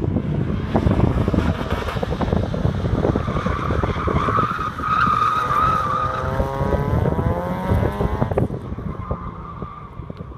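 Mazda MX-5 Eunos Roadster with a 1.8-litre four-cylinder engine driven hard round cones: its tyres squeal through a turn for a couple of seconds, then the engine note rises as it accelerates away and stops suddenly a little after eight seconds in. Wind buffets the microphone throughout.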